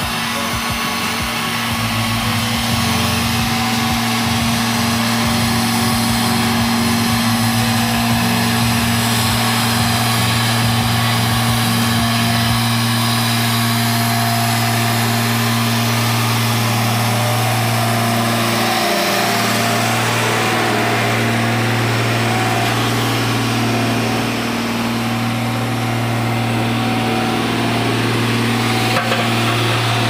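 Diesel engine of a Volvo single-drum road roller running steadily at high revs, a loud constant drone that wavers briefly a few times in the second half.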